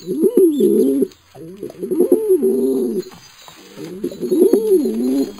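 Domestic pigeon cooing: three drawn-out, wavering coo phrases, each a second or more long, with short pauses between them.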